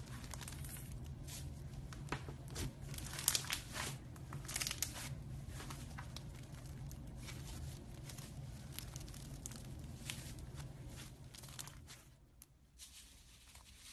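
Pink floam, slime packed with tiny foam beads, being squeezed and stretched by hand: a dense crackle of small pops and crunches, busiest a few seconds in and fading out near the end.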